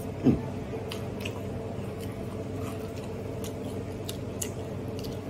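Chewing and lip-smacking of a man eating Mexican street corn off the cob, faint wet clicks scattered through. A short loud mouth sound falling in pitch comes just after the start.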